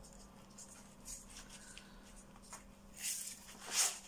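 Baking paper rustling and crinkling as a rolled sheet of puff pastry is unrolled and lifted off it, with two louder rustles near the end.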